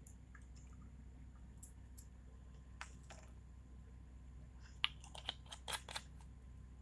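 Light, sharp clicks and taps of glass test tubes being handled in a plastic rack: a few scattered ones, then a quick run of them about five seconds in, over a low steady hum.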